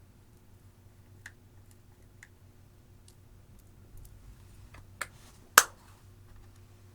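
Slime and makeup being handled: a few faint clicks, then two sharp clicks about five seconds in, the second the loudest.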